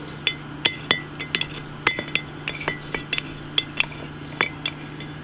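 Hand hammer striking a railroad spike on a small anvil, forging it into a bottle opener: sharp ringing clinks of steel on steel, about three a second, some hard and some light.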